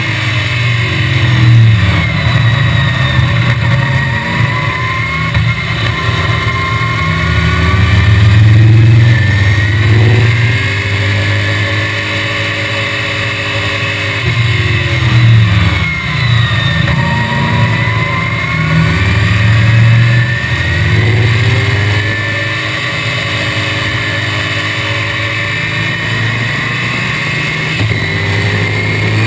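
The small-block Chevrolet V8 of a 1965 Cheetah roadster, heard from its open cockpit at racing speed. Its note climbs under full throttle and drops sharply several times as the driver lifts and shifts for corners, then climbs again.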